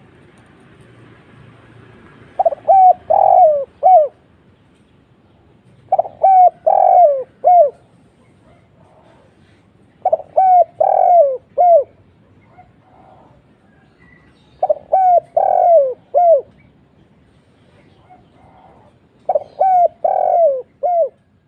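Spotted dove cooing its song: five phrases about four seconds apart, each a quick run of four low coos with the last one falling away.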